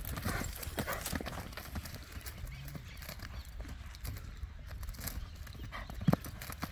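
Hoofbeats of a ridden horse cantering on dry, bare dirt: a run of quick, uneven hoof strikes. A single short thump near the end.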